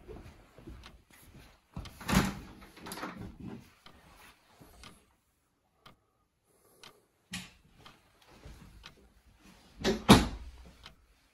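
Rummaging through household things: rustling and knocks of doors or drawers being opened and handled, with the loudest knock about ten seconds in.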